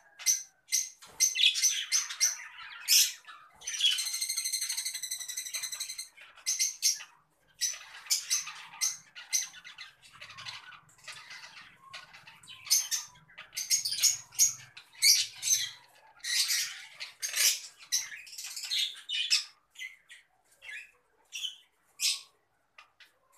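Caged Fischer's lovebirds giving rapid, shrill chirps and squawks in quick succession. About four seconds in, one longer call pulses evenly for about two seconds.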